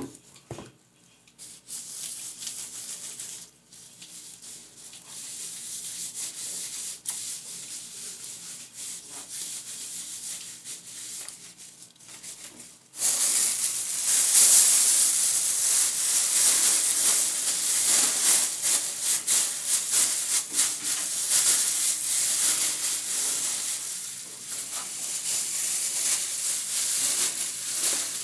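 Soft rubbing and rustling, then from about halfway in a loud, continuous crackly crinkling of a plastic bag being handled and worked into place.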